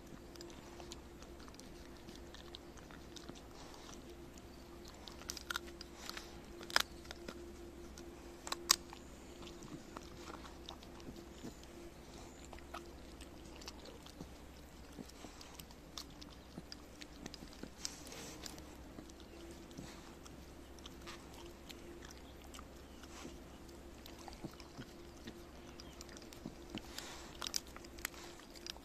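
Shiba Inu chewing and crunching stock-boiled chicken carcass bones: irregular sharp cracks of bone breaking between its teeth, the loudest about 7 and 9 seconds in, coming more often near the end.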